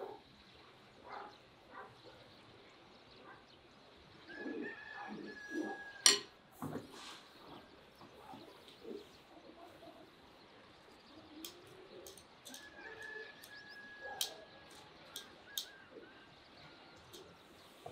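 Metal tongs clicking and clinking as grilled meat is picked up and pushed into a bread roll, with one sharp clack about six seconds in and a quick run of light clicks later on. A bird whistles twice in the background, each call a long steady note.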